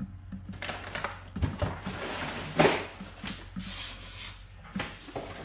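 Rustling and scattered light knocks of things being handled, with one louder knock a little past halfway.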